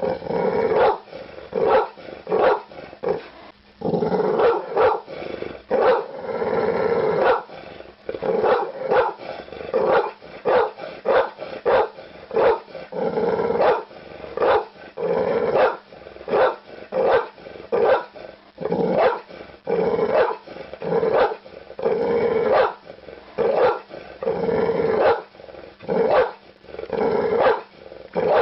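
A dog barking loudly over and over, about one to two barks a second with short gaps, now and then drawn out into longer, harsher stretches.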